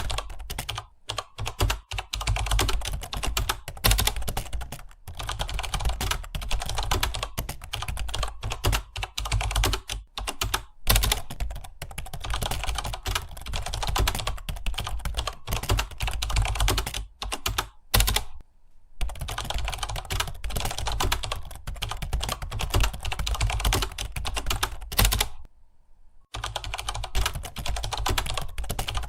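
Fast typing on a computer keyboard, a dense run of key clicks that stops briefly twice, over a steady low hum.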